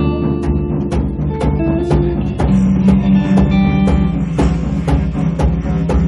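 Live jam music: drums, including a djembe, beating a steady rhythm over sustained low notes, with a few short higher melodic notes.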